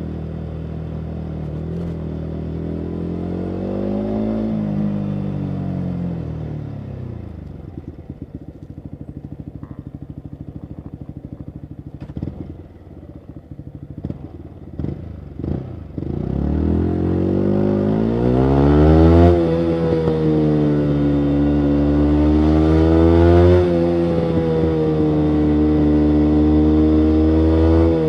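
Yamaha MT-125's single-cylinder four-stroke engine through a full Akrapovic exhaust, ridden on the road. It revs up and eases off, then runs low with a few sharp exhaust pops near the middle. It then accelerates hard, shifting up twice, and settles into a steady cruise.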